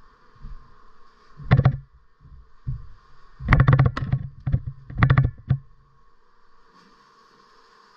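Steady faint hum of a honeybee colony, broken four times by short bursts of rapid knocking and scraping close to the microphone, the longest about halfway through.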